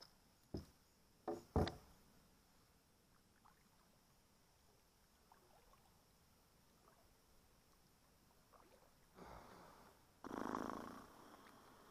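Kayak knocks and paddling: three sharp knocks against the hull within the first two seconds, then two short rushing paddle strokes near the end, the second louder.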